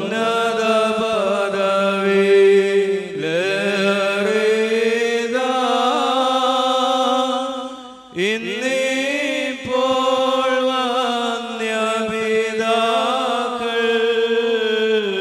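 Liturgical chant sung in one melodic line, with long held notes that slide between pitches and a short break about eight seconds in.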